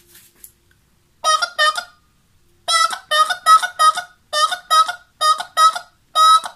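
A man's vocal imitation of a bicycle horn: short nasal honks, mostly in quick pairs, starting about a second in and repeating throughout.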